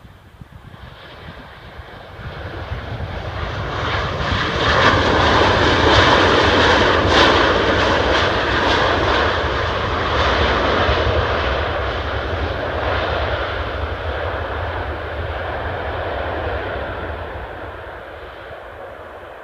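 Engines of a Gol Boeing 737 jet airliner passing by: the noise swells over the first few seconds, is loudest around six to eight seconds in, then slowly fades away.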